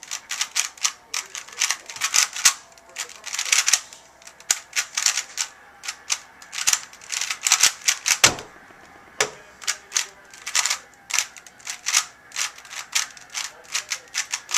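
Alpha 2 speedcube being turned fast by hand: rapid plastic clacking of layer turns, several clicks a second. About eight seconds in there is one heavier thump as the hands come down on the Stackmat timer to stop the solve, then the cube turning carries on.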